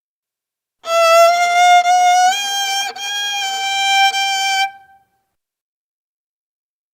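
Viola bowing a high sustained note that starts about a second in, steps slightly up in pitch about halfway through, and stops after roughly four seconds.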